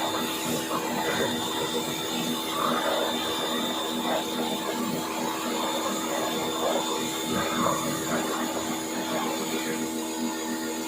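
A machine running steadily: a constant motor hum with irregular swishing noise on top.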